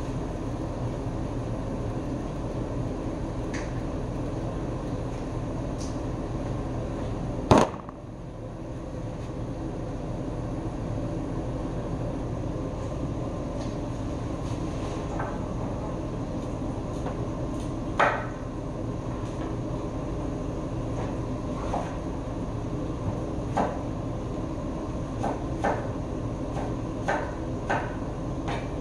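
Kitchen knife chopping tomatoes on a wooden cutting board: scattered knocks, coming about one or two a second in the last third. Two louder sharp knocks come about seven seconds in and again at eighteen seconds. A steady low rumble runs underneath.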